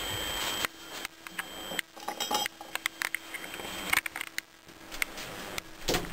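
Irregular light clinks and knocks of small hard objects being handled, with a short hiss for the first moment.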